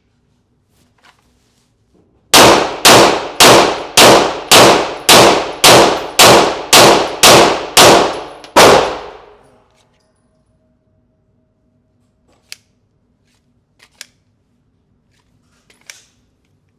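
Glock pistol fired twelve times in a steady string, about two shots a second, each shot ringing out and dying away before the next. A few faint clicks follow.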